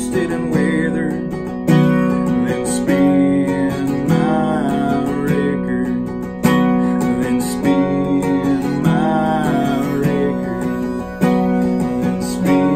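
Two acoustic guitars strummed in a slow country ballad, with a harmonica playing a melody of bending notes over them.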